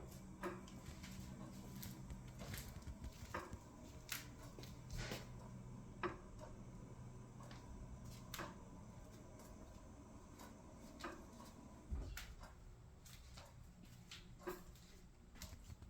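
Frigidaire Gallery refrigerator running with a steady low hum, with a dozen or so faint, sharp ticks and clicks at irregular moments.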